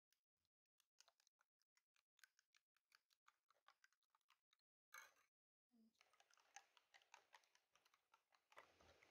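Metal spoon beating raw eggs in a ceramic bowl: a faint, rapid run of clicks as the spoon taps and scrapes the bowl, with one louder knock about five seconds in and busier clatter after it.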